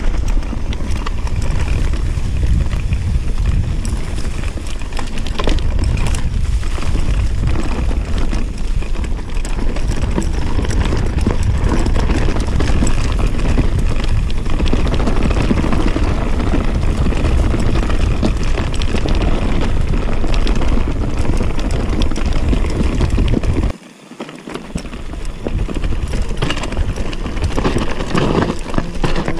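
Mountain bike ridden fast over a dirt trail: wind rumbling on the camera microphone, with tyres crunching and the bike rattling over bumps. The wind rumble drops out briefly near the end.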